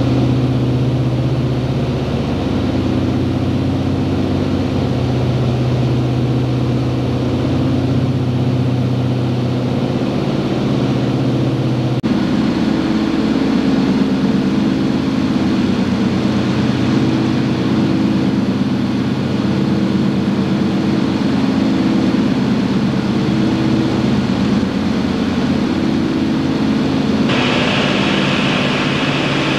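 The four Wright R-3350 eighteen-cylinder radial engines and propellers of a Lockheed L-1049H Super Constellation droning steadily in cruise, heard inside the cabin, with a slow throb in the low drone. The sound shifts abruptly about twelve seconds in and again near the end, the last part with more hiss.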